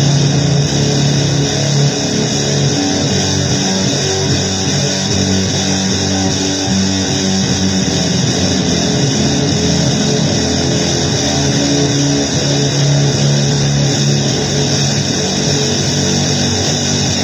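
Loud, dense noise music on distorted guitar: held low notes over a constant hiss, with no break.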